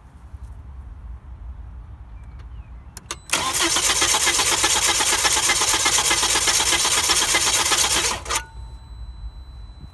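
Volvo V70 2.4 five-cylinder petrol engine cranking over on the starter motor for about five seconds without firing, because the fuel pump fuse is pulled. The cranking rhythm is even, the sound of a healthy engine with good compression in every cylinder. It starts about three seconds in, just after a couple of clicks, and cuts off sharply.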